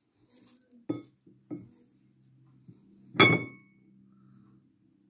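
Glass dishes clinking against a glass mixing bowl as ingredients are tipped in: two light knocks, then a louder ringing clink about three seconds in.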